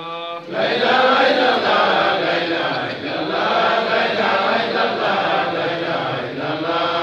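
Men's voices chanting a religious recitation together: one voice holds a note briefly, then several voices join in a dense, swelling chant about half a second in.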